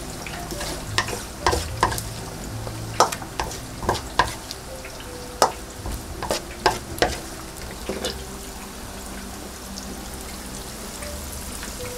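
Steady sizzle of pig's trotters deep-frying in oil, with a string of sharp, irregular clacks and knocks from about a second in until about eight seconds in, then only the sizzle.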